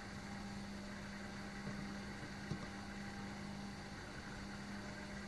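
Steady low electrical hum over a faint hiss, with one faint tick about two and a half seconds in.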